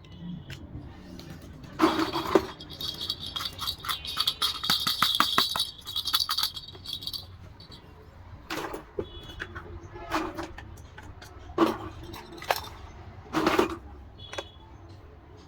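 Small hard plastic toy pieces being handled, with a rapid rattling and clicking for a few seconds, then several separate sharp taps and knocks.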